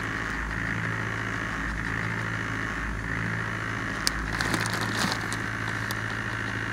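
Steady hum of a car engine, heard from inside the cabin. A short run of crackling clicks comes about four seconds in.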